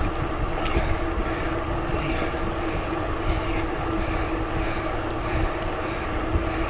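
Riding noise from a moving bicycle: wind rumbling on the microphone over a steady hum from the rolling bike, with a faint tick or two.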